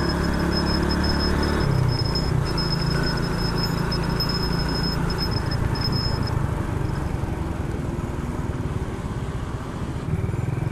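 Motorcycle engine running on the move, with wind and road noise on the microphone; the engine note changes about two seconds in, eases off near the end and picks up again.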